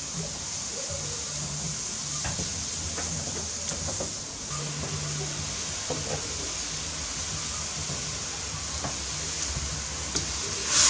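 Gas burner hissing steadily under a round-bottomed wok of water simmering with broccoli and green beans, with scattered faint pops from the bubbling water. A brief louder rush comes near the end.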